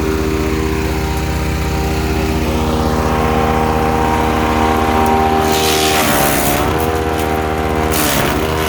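Ducar woodchipper's 420 cc gas engine running steadily. About five and a half seconds in and again near the end, branches go through the chipper with a loud crackling, and the engine's pitch dips briefly under the load each time.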